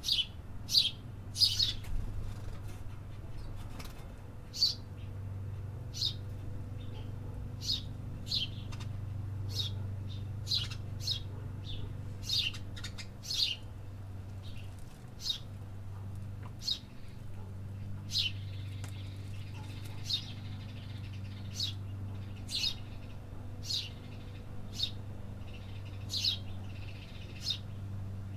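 Small birds chirping, short sharp calls repeated about once a second at an irregular pace, over a steady low hum.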